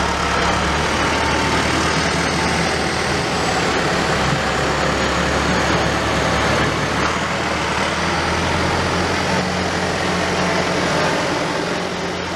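Farm tractor's diesel engine running steadily as it pulls a trailer off. Its note shifts about seven seconds in, and the sound fades out near the end.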